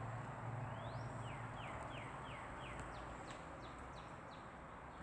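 A songbird singing a phrase of quick whistled notes. It opens with one rising note, then runs on at about three notes a second, each note sliding down in pitch, with the later notes higher. It sings over a steady outdoor background hiss.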